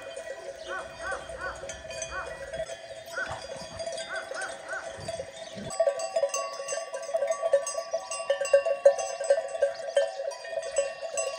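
Many livestock bells clanking together, as a flock with bells moves about. The jangle grows louder and busier about halfway through.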